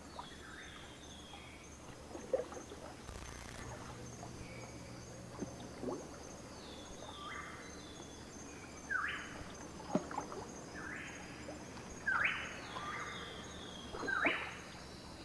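Tropical forest and swamp ambience: a steady high insect drone, with animal calls that jump upward in pitch and hold, repeating every second or two and growing more frequent in the second half. A few sharp knocks sound through it.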